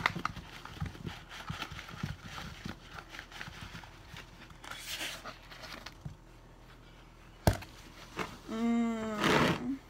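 Sliced apples tumbling out of a plastic container into a pie crust in a glass pie dish, a run of soft knocks and clatters, then apple slices spread by hand. A single sharp knock comes about seven seconds in, and a short voice sound lasting about a second near the end.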